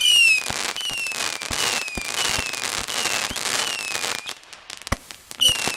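Whistling fireworks going off in quick succession: a string of short shrill whistles, each dipping slightly in pitch, about two a second, over crackling pops. It thins out for about a second near the end, then a fresh burst starts.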